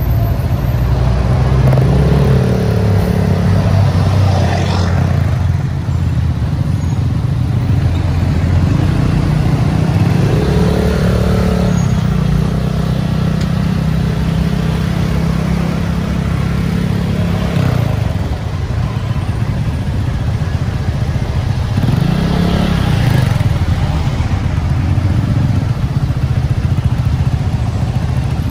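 Motorbike engine running on the move, its pitch rising and falling again and again as it speeds up and eases off, over a steady rush of street noise.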